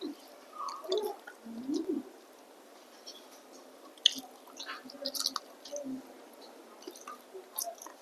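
Close-up chewing and wet mouth sounds of a person eating, irregular smacks and crackles as the food is chewed.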